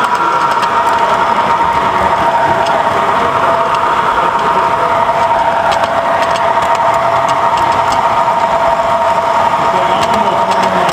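Toy trains running on three-rail metal track: a steady electric whine in two pitches over the rumble of wheels on the rails, with scattered light clicks.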